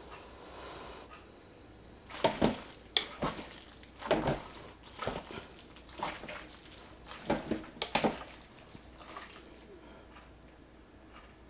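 Metal tongs mixing sauced pulled pork in a slow cooker crock: wet squelching of meat and barbecue sauce with sharp clicks of the tongs, several of them irregularly spaced between about two and eight seconds in.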